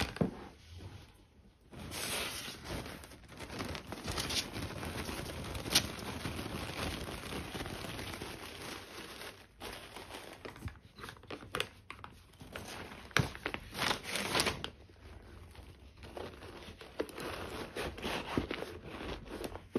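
Thin white tissue paper being crumpled and crinkled while it is stuffed into a leather handbag to restore its shape. The crinkling is continuous for most of the first three-quarters, then breaks into short, scattered crinkles near the end.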